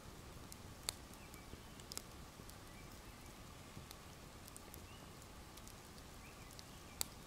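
Faint campfire crackling: scattered sharp pops and snaps of burning wood over a low background, the loudest about a second in, at two seconds and near the end.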